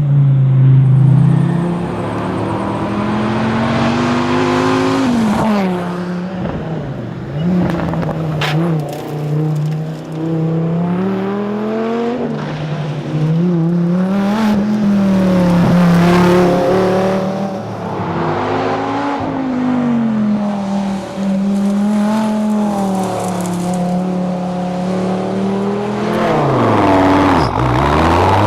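Dodge Viper ACR's V10 engine driven hard on a rally stage, the pitch climbing and falling over and over as it accelerates, changes gear and lifts for corners, with stretches held steady. Near the end the revs drop right down and then climb steeply again.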